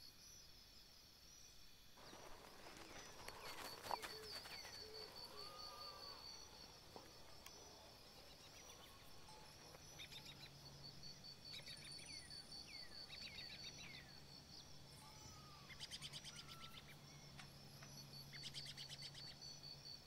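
Faint outdoor ambience of a steady, pulsing high insect trill with scattered bird chirps and calls, several falling whistled notes and a few fast rattling trills near the end. A faint low hum comes in about halfway.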